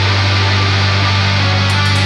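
Black metal music: dense distorted guitars over a held low bass note, with quick cymbal hits coming in near the end.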